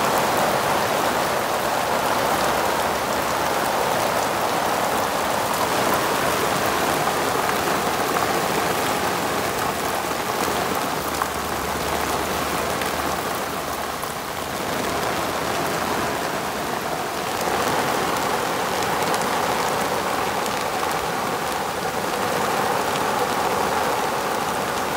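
Heavy thunderstorm rain pouring down steadily, so loud.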